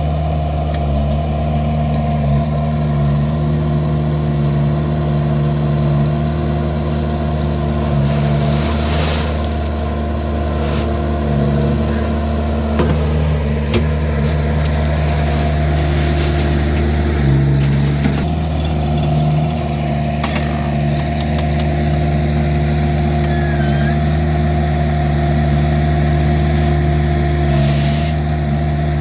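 Vermeer mini skid steer's engine running steadily, with a few short knocks along the way.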